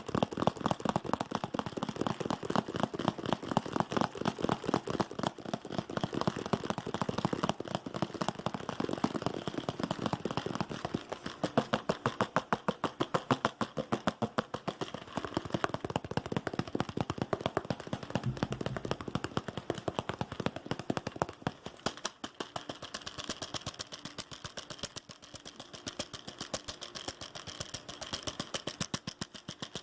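Fast, aggressive ASMR tapping: a rapid, unbroken run of sharp taps on hard objects, many a second, a little softer in the last third.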